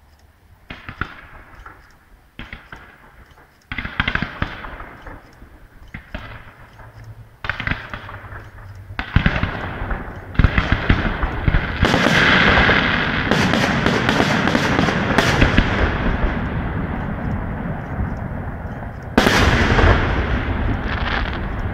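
Fireworks display: aerial shells bursting in a series of sharp bangs a second or two apart, coming faster and louder until they merge into a dense, continuous crackle and rumble about twelve seconds in. Another loud burst comes near the end.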